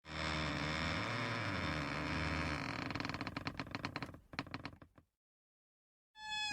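Interior door creaking on its hinges: a long, steady creak that breaks into a rapid run of clicks and stops about five seconds in. After a second's pause another creak begins, its pitch sliding down.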